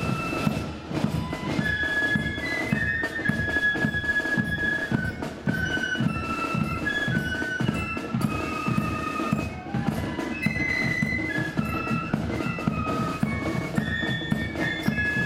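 Marching flute band playing a tune: many flutes in unison carry the melody over steady bass drum and drum beats.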